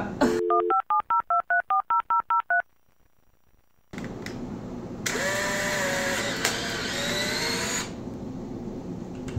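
A short steady tone, then a quick run of about ten telephone keypad (DTMF) beeps. After a pause, the Polaroid Land Camera Pronto's motor whirs for about three seconds as it drives the exposed print out of the camera.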